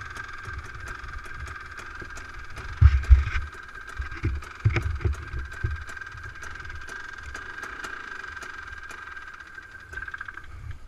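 Dune buggy engine idling steadily, its note cutting out about ten and a half seconds in. A few low thumps of wind or knocks on the microphone come about three and five seconds in.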